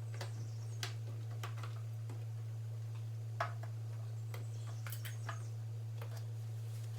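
Scattered small clicks and taps of hand work on a small-engine carburetor and its fuel line, over a steady low hum.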